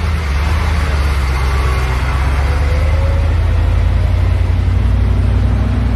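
Heavy diesel fire trucks rolling slowly past one after another, their engines making a steady deep rumble.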